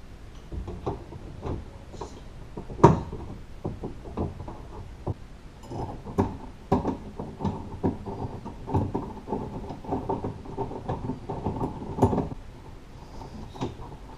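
Knocks and clicks of a Honda Odyssey's outside door handle assembly being worked back into the door and fitted. They come irregularly, the sharpest about three seconds in, and thicken into a busy run of clicks and rattles in the second half.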